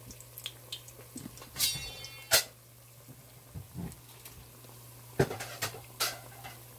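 Kitchen clatter of things being picked up and set down: a few sharp knocks and clicks, the loudest about two seconds in and again near five seconds. A brief squeak comes just before the first loud knock, over a steady low hum.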